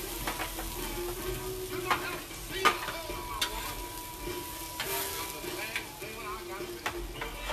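Onions sizzling on a Blackstone steel flat-top griddle while a metal spatula stirs them, with scattered sharp clicks and scrapes of the spatula on the griddle.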